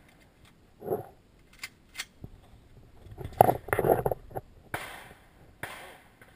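Handling noise from a camera being moved: scattered clicks and knocks, a louder cluster of thumps about three and a half seconds in, and short rubbing rustles near the end. No gunshot.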